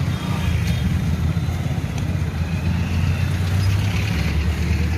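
Street noise: a steady low rumble, like road traffic or engines, with no clear individual events.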